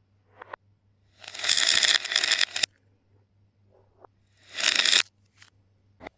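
Small hard objects such as beads or wooden toys rattling and tumbling, played backwards: bursts of rattling noise that swell up and cut off abruptly. There is a short one near the start, a long one ending in two sharp stops, and another about three-quarters of the way through, with a few faint ticks between.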